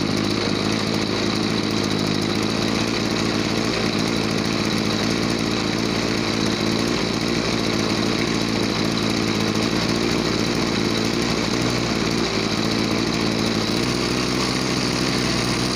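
Small two-stroke engine of a Tasco backpack sprayer running steadily at half throttle while its carburettor adjustment screw is slowly turned to tune the fuel-air mixture. Its note changes slightly about fourteen seconds in.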